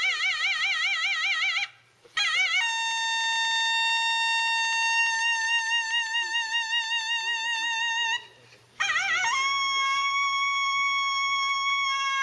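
Danso, the Korean bamboo vertical flute, played solo. It holds long single notes with a wide wavering vibrato at first and slides up into the next note, with two short pauses for breath.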